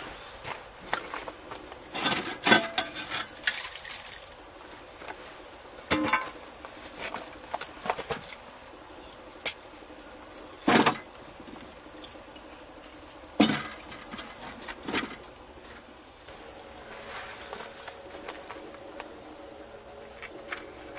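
Split firewood being handled and loaded into a metal barrel stove: an irregular series of wooden knocks and clunks as logs strike each other and the stove, then softer rustling near the end.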